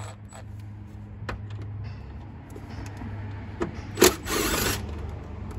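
Cordless impact driver run in one short burst about four seconds in, undoing a 10 mm nut, after a few light clicks of the tool and socket being set on it. A low steady hum runs underneath.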